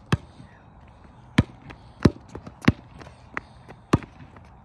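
Basketball being dribbled on a concrete court: about six sharp bounces at an uneven pace, roughly one every half second to a second, with a few fainter taps between them.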